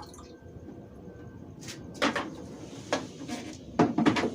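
Knocks and clunks of containers being handled while collected water is measured out: a couple about two seconds in, one near three seconds and a quick cluster near the end.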